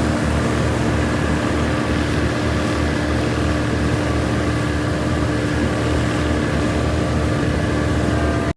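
A motor engine running at a steady speed, with a low even throb and a steady hum. It cuts off suddenly near the end.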